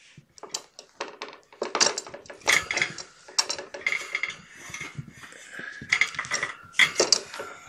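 Irregular clattering and scraping of a plastic digital scale's weighing tray as kittens are set on it and scramble across and off it.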